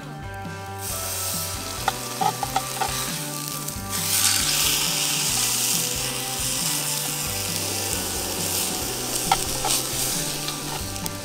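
Food sizzling in a frying pan, the sizzle growing louder about four seconds in, with a few light clicks of a utensil against the pan.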